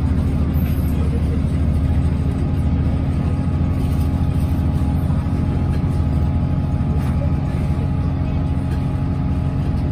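Class 165 diesel multiple unit's underfloor diesel engine running steadily at speed, heard from inside the carriage, a loud low drone that holds one pitch, over the running noise of the moving train.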